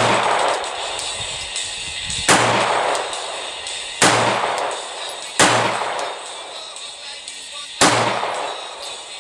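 Five single gunshots fired at an unhurried pace, about one to two and a half seconds apart, each with a long fading echo. Background music plays underneath.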